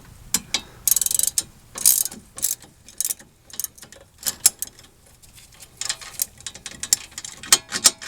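Hand ratchet clicking in short runs and single clicks as it backs the 18mm nut off a sway bar end link, the stud held still with a 6mm Allen bit.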